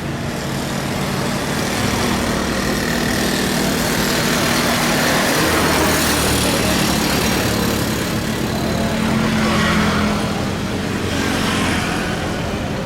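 Jet airliner engines running steadily at the airport, a continuous rushing noise with a low hum.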